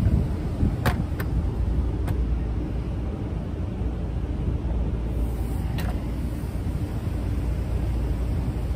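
Steady low rumble of wind on the microphone, with a few sharp clicks from handling a rubber V-belt on a steel motor pulley: three in the first two seconds and one near six seconds.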